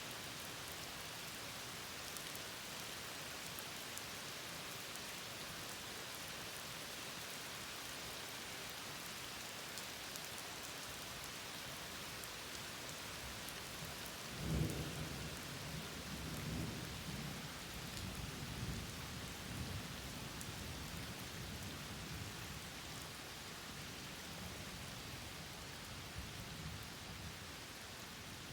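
Steady rain falling throughout, with a thunderclap about halfway through that cracks sharply and then rolls and rumbles for several seconds.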